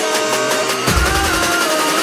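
Background electronic dance music: a synth melody over a bass line, with a bass drum hit about a second in.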